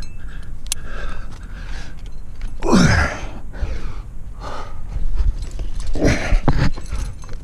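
A climber's heavy, effortful breathing, with two loud voiced groans that slide down in pitch about three and six seconds in, from the strain of climbing.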